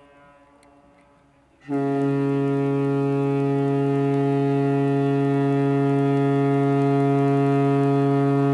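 Cruise ship MSC Armonia's horn. The faint tail of an earlier blast dies away, then about two seconds in the horn sounds one long, deep, steady blast that holds through to the end.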